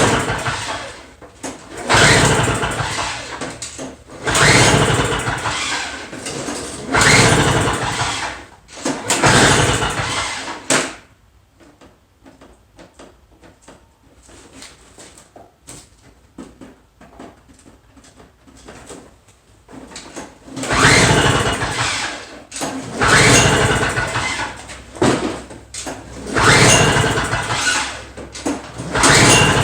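Recoil starter of a Toro 2450 two-stroke snow blower being pulled on full choke after priming: about eight hard pulls, each spinning the engine over briefly without it catching, in two sets of four with a pause of about ten seconds between them.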